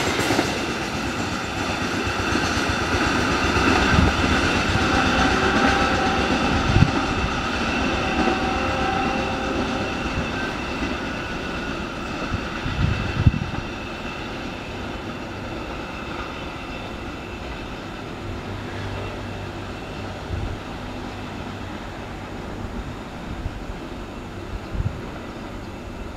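Container freight train rolling past on steel rails, the wagons' wheels knocking now and then over rail joints, the sound fading steadily as the train pulls away.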